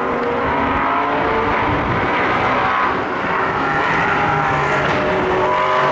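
Several sports car engines running and revving together, their pitches rising and falling and overlapping.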